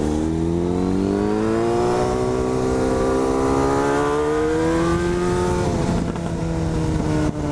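Yamaha FZ6 inline-four engine through an aftermarket carbon exhaust, pulling in gear with its note rising steadily for about five seconds, then dropping as the throttle eases off.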